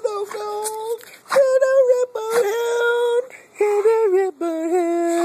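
Redbone coonhound vocalising at the camera in a run of about five drawn-out, pitched whines, each under a second long, stepping and dipping in pitch between short breaks.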